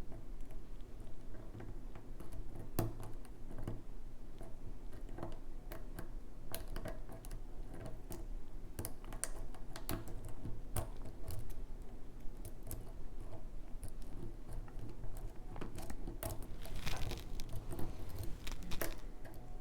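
Lock pick and tension wrench working the pins of a challenge lock's Schlage core: small irregular clicks and ticks of the pick lifting pins and metal tools against the cylinder, over a faint steady hum.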